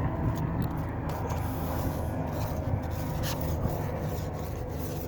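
Gel coat being worked onto a fiberglass pool surface with a hand applicator: irregular short scraping and rubbing strokes, over a steady low hum.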